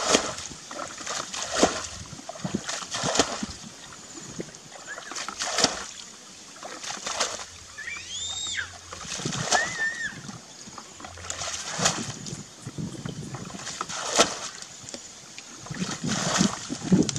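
Irregular splashes and rustles of hands working in wet mud and grass, a sharp stroke every second or two. A short high arching call sounds about eight seconds in, and another about ten seconds in.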